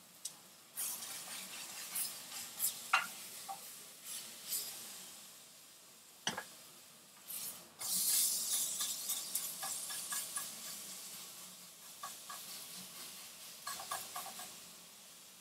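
Peppers sizzling in a frying pan while a wooden spatula stirs them, with scattered light knocks and scrapes of the spatula on the pan. The sizzle swells about eight seconds in, then slowly dies down.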